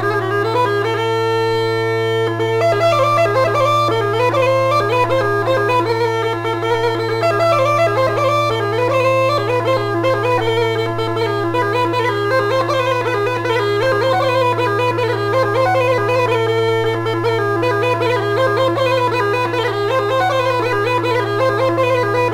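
Macedonian gaida (skin-bag bagpipe) playing a fast, heavily ornamented folk melody on its chanter over a steady low drone.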